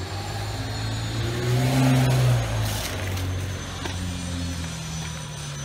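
A car driving past on the street, its engine and tyre noise swelling to a peak about two seconds in and then fading away.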